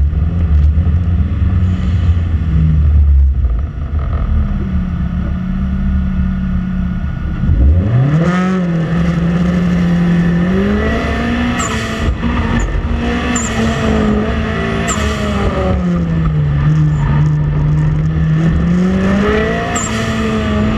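Nissan 180SX engine revving hard as the car is thrown around a cone course. The pitch climbs steeply about eight seconds in, then rises and falls with throttle, and brief tire squeals cut in several times in the second half.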